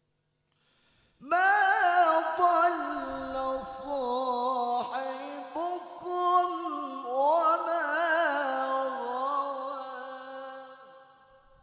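A male Quran reciter's high voice, amplified through a microphone, holds one long ornamented melodic phrase in tilawah style, with quick trills and pitch turns. It begins about a second in and fades away near the end.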